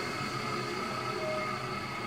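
Electrolux Wascator W355H commercial washing machine running steadily, a motor whine of several steady tones over a constant rushing hum.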